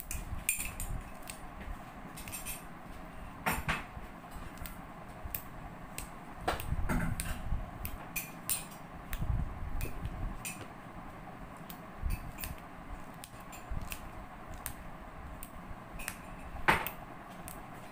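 Kitchen clatter while cooking: utensils and cookware knocking and clinking in scattered, irregular strikes, the loudest a little before the end.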